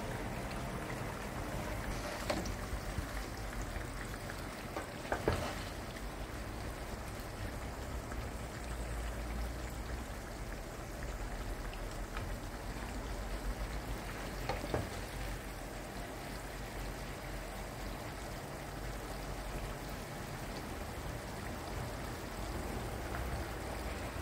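Pan of potatoes and peppers in oil and tomato sizzling steadily. A few sharp knocks of a utensil against the pan come in over the sizzle, twice in the first few seconds and once around the middle.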